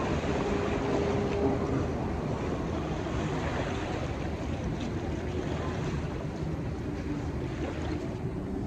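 Small waves washing and breaking along a river's gravel shoreline, a steady wash of water with wind on the microphone.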